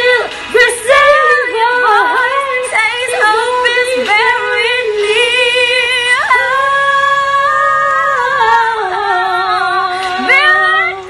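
Two women singing a duet in high, belted voices. Quick vocal runs give way to long held notes about halfway through, and a new phrase starts near the end.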